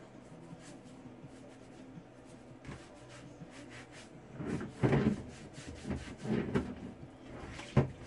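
Low and even for the first half, then several irregular sloshing and rubbing sounds as a wet loofah is dipped in shallow bath water and scrubbed, ending with one sharp knock against the bathtub.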